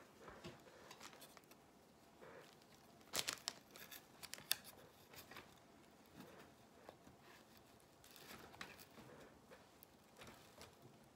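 Faint crinkling and rustling of plastic decorative mesh as it is scrunched and looped around a wreath form, with a few sharper crackles about three to four and a half seconds in.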